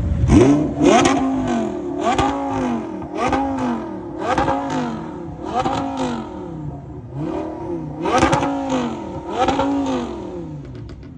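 Car engines revving again and again, the pitch rising and falling about once a second in a steady run of rev blips, with sharp pops between them.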